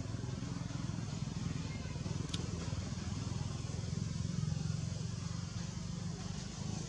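A steady low engine-like drone, as of a motor running nearby, with a single sharp click about two seconds in.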